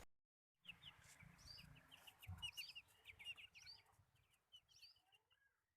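Near silence with faint, quick high-pitched chirps like small birds, thinning out toward the end.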